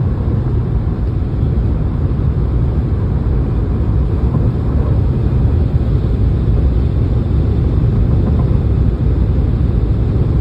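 Cabin noise of a Ford F-150 Lightning electric pickup running near its top speed: a steady low rumble of tyre and wind noise with no engine note, growing slightly louder.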